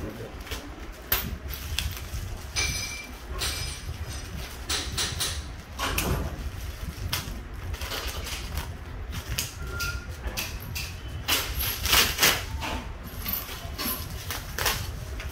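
Plastic sheeting and taped brown paper wrapping being pulled, torn and crinkled by hand, giving irregular rustles and crackles with a louder burst of tearing near the end. A steady low hum runs underneath.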